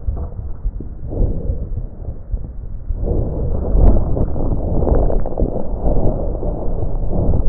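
Breath sounds from the left upper lung lobe of a COVID-19 pneumonia patient, picked up by an electronic chest stethoscope sensor. The breaths come through as muffled rushing over a constant low rumble, louder and longer from about three seconds in, with a few short clicks around the middle.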